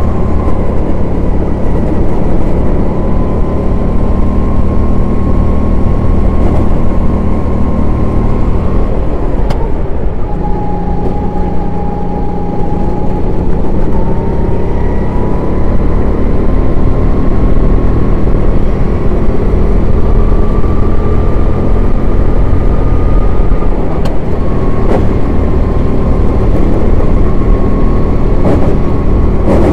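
Racing kart engine running at high revs under the driver, with a dense low rumble throughout. The engine note drops for a corner about ten seconds in, then climbs back as it accelerates away.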